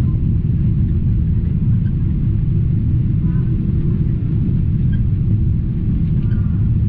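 Steady low rumble of engine and airflow noise inside the cabin of a Boeing 777-200 descending on approach with its flaps extended.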